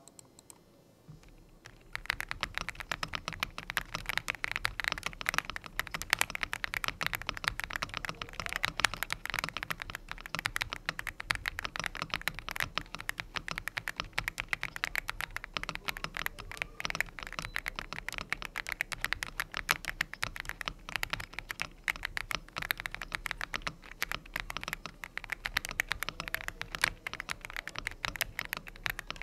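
Typing on an Epomaker EA75 gasket-mounted 75% mechanical keyboard with factory-lubed Leobog Reaper switches, a PC plate and double-shot PBT keycaps: a fast, continuous run of crisp key clicks that starts about two seconds in.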